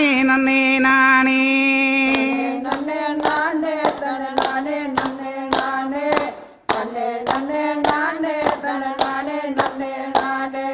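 Group hand-clapping in a steady rhythm, about two claps a second, over singing that opens on a long held note. Everything drops out briefly a little past the middle, then the clapping and singing resume.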